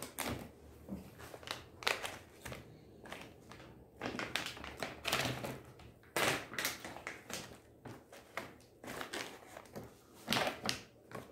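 Plastic stand-up pouches of nuts rustling and crinkling as they are handled and set down one after another on a table, with irregular light taps and thuds.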